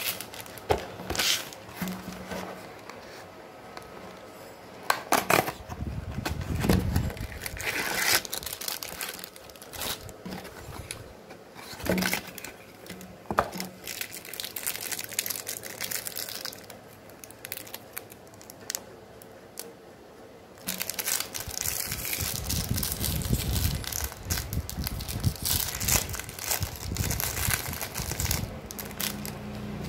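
Clear plastic wrappers crinkling and tearing as small toy figures are unwrapped by hand, with scattered clicks and taps. The crinkling comes in short bursts at first and becomes almost continuous in the last third.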